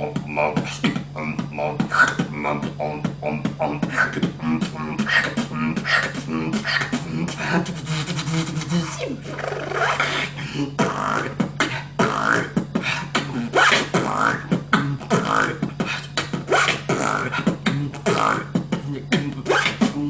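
Beatboxing: a man making fast drum patterns with his mouth, sharp kick, snare and hi-hat clicks in a quick rhythm over a steady low hum that holds underneath.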